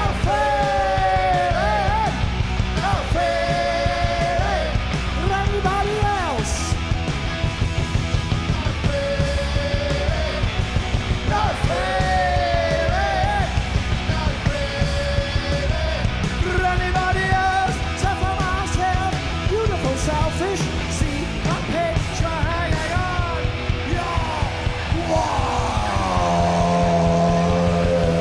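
Punk rock band playing live at full volume: distorted electric guitars, bass and drums, with bending lead lines and some yelling. Near the end the band holds a chord.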